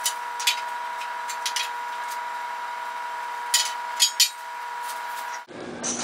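A few sharp clinks and taps as a long box level is picked up and set down along a steel I-beam, the loudest cluster about two thirds of the way through, over a steady background hum.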